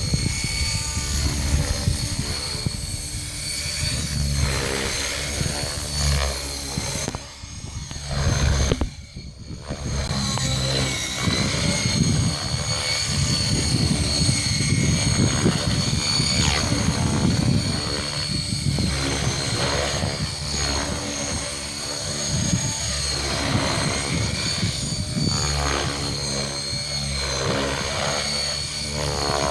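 Electric RC helicopter (Gaui X5) in flight: a steady high motor whine over the chop of the rotor blades, the sound briefly dropping away about seven to ten seconds in before picking up again.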